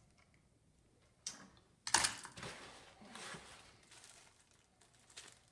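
Unpacking handling noise: two sharp clicks a little past a second in, then crinkling and rattling of a small plastic bag of mounting hardware that fades out.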